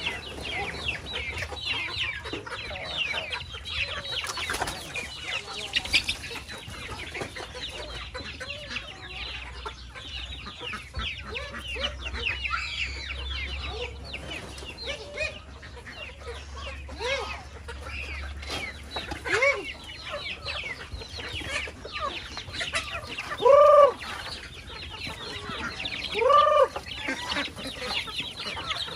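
A flock of chickens clucking and calling, with many short high-pitched calls throughout and two louder, longer calls near the end.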